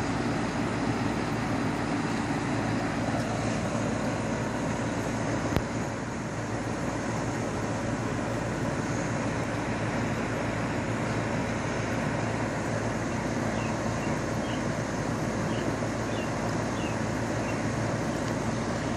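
Steady whirring hum of an outdoor air-conditioner condenser unit running, fan and compressor, with one sharp click about five and a half seconds in and a few faint high chirps later on.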